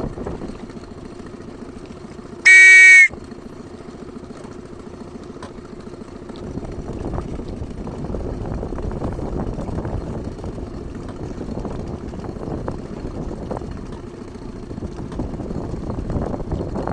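A single short, very loud air-horn blast about two and a half seconds in, over steady wind and water noise.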